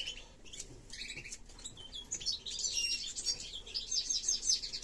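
Caged finches chirping and twittering, with quick runs of high notes coming in several bursts.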